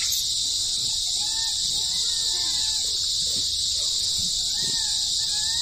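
Monkeys giving short, repeated squeals that rise and fall in pitch, over a steady high buzz of insects.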